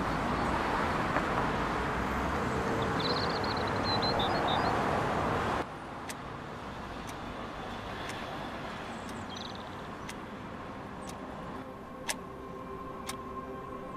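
Steady street traffic noise with a few high chirps, cutting off abruptly about five and a half seconds in to quiet room tone. Near the end a quartz wall clock ticks about once a second.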